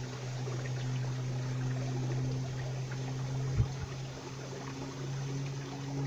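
Stream water trickling among boulders, under a steady low hum, with a single sharp knock about three and a half seconds in.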